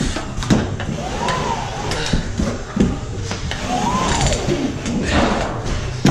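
Drywall flat box on an extension handle scraping joint compound over drywall joints, with sharp clicks and knocks from the box and handle.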